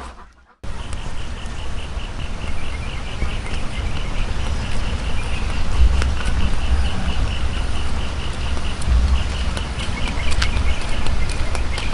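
Insect chirping in a rapid, even pulse over a low rumble, with a few faint clicks; the sound cuts in about half a second in.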